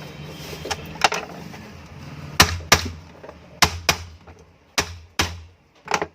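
A series of sharp knocks and clicks, about eight in six seconds, from metal ceiling-fan parts and tools being handled and fitted during reassembly. A low steady hum runs underneath and stops near the end.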